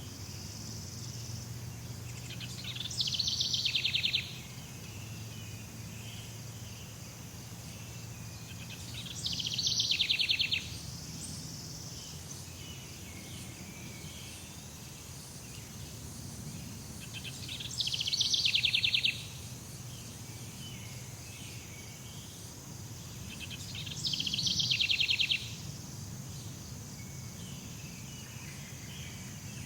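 Jungle ambience: a steady high insect drone over a low rumble, broken four times by a loud, rapid trill lasting a second or so that swells as it goes.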